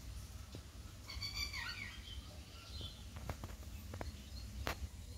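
Rose-ringed (Indian ringneck) parakeet giving one short call with wavering pitch about a second in, lasting about a second, with a few sharp clicks around it.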